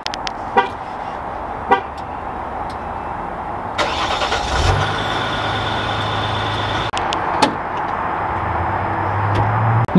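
Two light clicks of key-fob buttons, then about four seconds in the 3.0-litre EcoDiesel V6 cranks and starts, settling into a steady diesel idle with a faint whine over it.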